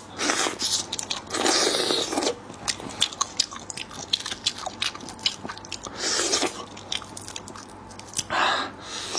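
Close-miked eating of seafood: biting and chewing with many sharp wet clicks and smacks, and a few longer, noisier mouthfuls.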